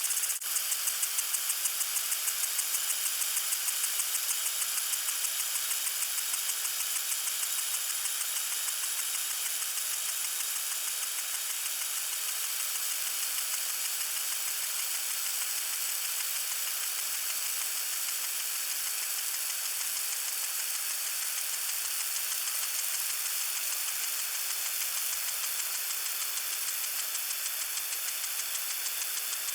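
Lawn sprinkler spraying water: a steady hiss with a rapid, even ticking running through it.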